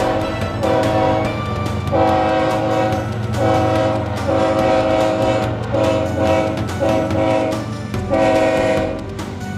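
Nathan K5LA five-chime air horn on a CSX GP40-2 locomotive played as a horn show: a string of short and longer blasts with brief gaps between them, over the locomotive's diesel engine running underneath.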